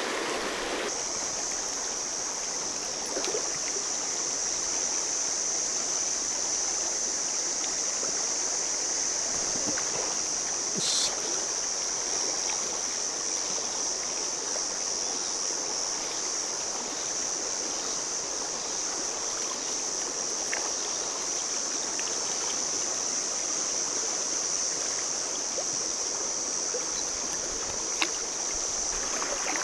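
Shallow river rushing over a gravel riffle: a steady hiss of flowing water with a brighter high edge, and one brief sharp sound about eleven seconds in.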